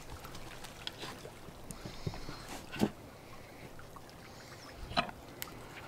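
Eating from a metal camp cooking pot: a utensil scrapes and clicks against the pot several times, loudest about three seconds in and again about five seconds in, over a faint steady hiss.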